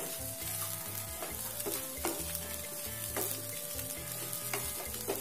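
Wooden spatula stirring poha in a pan on the stove: a soft sizzle with taps and scrapes of the spatula against the pan every half second to second.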